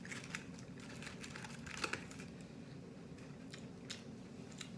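Close-up eating noises: scattered soft clicks and crinkles from handling and chewing crunchy fried food, with a small cluster of clicks about two seconds in.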